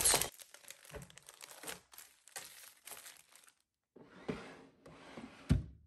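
Clear plastic cellophane bags and paper packaging crinkling and rustling as they are handled in a clear plastic storage box, with a louder rustle and a soft knock near the end.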